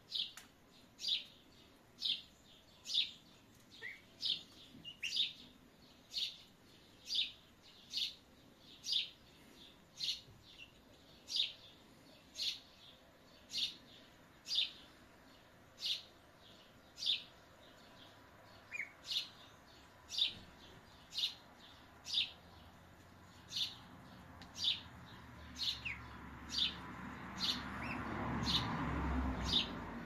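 Duckling peeping: short high peeps repeated about once a second, evenly spaced. Near the end a low rushing noise swells up and fades again.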